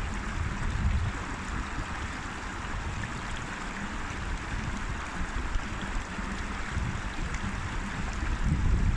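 River water flowing steadily, with an uneven low rumble underneath that is stronger in the first second and again near the end.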